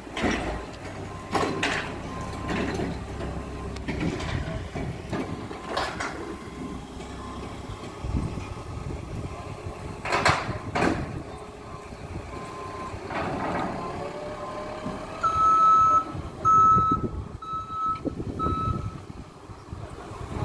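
Forklift reversing alarm beeping four times, about once a second, near the end. Before it come several loud clunks and a working forklift's engine while a shipping container is being unloaded.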